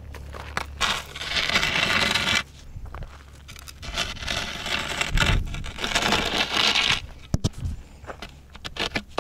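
Tip of a wooden walking stick scraping through gravelly dirt in long drawn strokes, then a few sharp clicks near the end.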